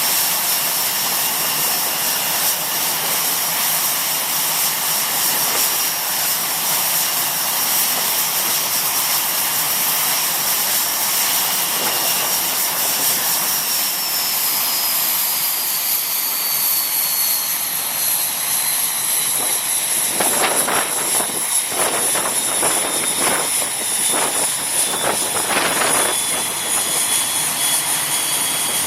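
A machine running loudly with a steady hiss and high whines that slowly drop in pitch over the second half, with a run of rough surges between about 20 and 26 seconds in.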